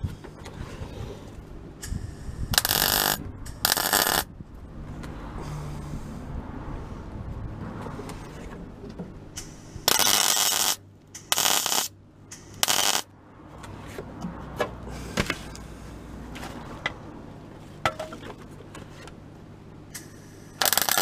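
MIG welder tack-welding a steel repair patch in place: five short bursts of arc, two about three seconds in and three in quick succession around ten to thirteen seconds, with another starting right at the end.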